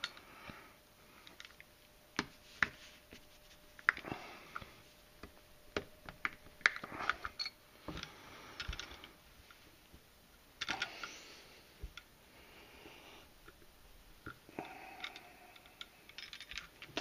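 Small metal clicks, taps and scrapes from a 1911 pistol frame being worked with a steel punch as its mainspring housing is taken out. The clicks come singly and irregularly, with a couple of brief sliding scrapes about eleven seconds in and again near the end.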